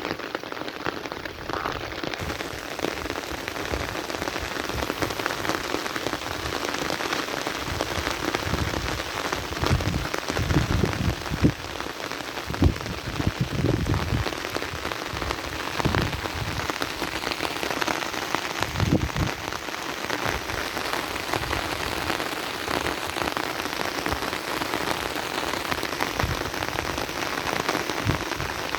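Heavy rain falling steadily on a surface, with many drops tapping close by and a few heavier low thuds among them.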